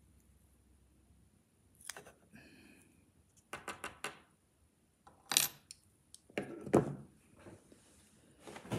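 After a quiet second or so, a run of sharp metallic clicks and clinks: pliers working a freshly cut metal key out of a plastic 3D-printed key holder. The key clinks as it is set down on a wooden table.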